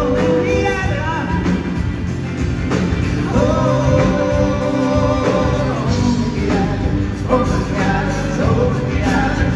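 Live rock band playing through a PA: drum kit, guitars and a singer's voice.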